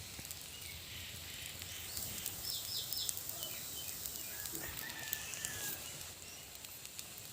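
Adai frying in sesame oil: a faint, steady sizzle, with a few short high chirps about two and a half seconds in.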